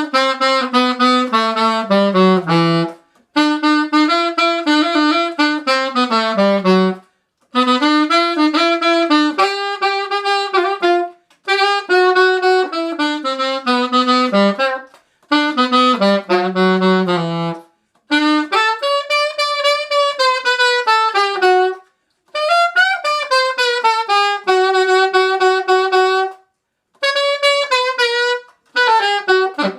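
Unaccompanied alto saxophone, a vintage Selmer Mark VI, playing funky improvised phrases in straight eighth notes with syncopation: about eight short lines of a few seconds each, separated by brief breath pauses, several ending on a falling or held low note.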